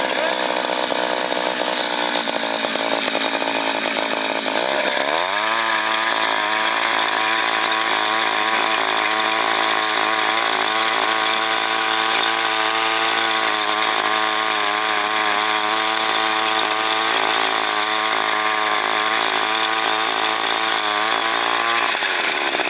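Small gas engine of a post-hole auger: running slow at first, then revving up sharply about five seconds in and held at high speed while the auger drills, dropping back near the end.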